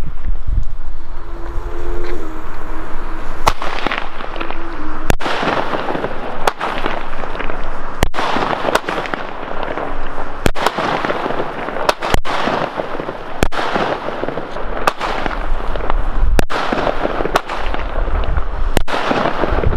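Alba Feuerwerk Asoka mini firework battery firing its shots. From about three and a half seconds in there is a sharp bang roughly every one and a half seconds, with a dense crackling hiss between the bangs.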